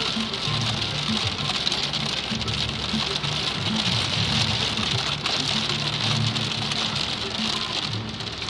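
Heavy rain pelting the car's windshield and roof, heard from inside the car as a dense, steady patter, with low music playing underneath.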